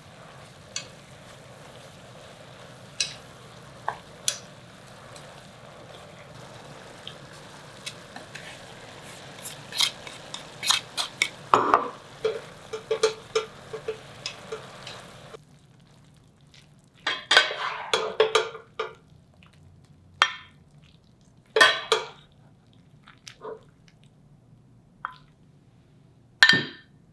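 Food frying in a pan with a steady sizzle, while a utensil stirs and knocks against the pan. About halfway through the sizzle stops abruptly, leaving separate clinks and scrapes of utensils on cookware and dishes.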